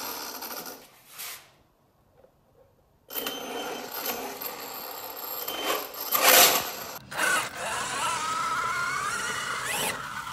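Electric RC trucks' brushless motors and drivetrains whining under throttle, the pitch rising and falling as the throttle changes in the second half. There is a short near-silent gap about two seconds in.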